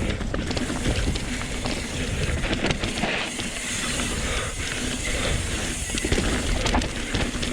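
Wind rushing over an action camera's microphone as a Pivot Switchblade mountain bike runs down a dirt trail, with the rumble of its tyres and scattered clicks and knocks from the bike over rough ground.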